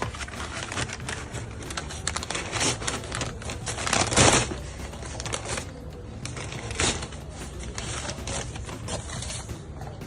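Hands handling cardboard and plastic packaging: a run of light clicks and taps, with a louder burst of rustling about four seconds in and a shorter one near seven seconds.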